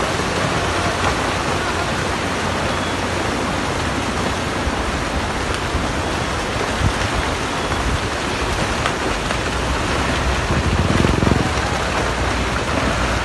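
Landslide debris and rocks pouring down a hillside, making a steady rushing noise, with a louder low rumble swelling about eleven seconds in.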